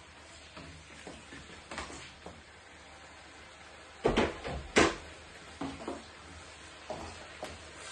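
Wooden spatula knocking and scraping against a wok while onions and peppers are stir-fried, with scattered sharp knocks, the two loudest close together a little past halfway.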